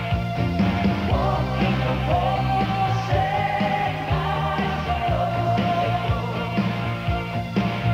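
Rock band music: drums and bass keep a steady beat under a long, held melody line that slides between notes.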